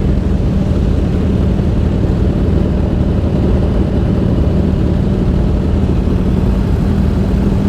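Motorcycle fitted with a full-system exhaust, running at a steady cruise; the engine note holds an even pitch with no revving.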